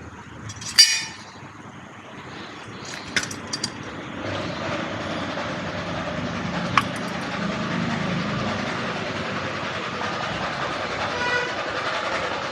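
A metal motorcycle paddock jack being handled: one sharp ringing clank about a second in, then a few light clicks. A steady rumbling noise swells up a few seconds in and becomes the loudest sound.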